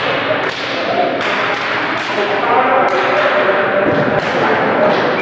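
A series of sharp hand slaps from volleyball players high-fiving, about eight in quick, irregular succession, echoing in a large sports hall.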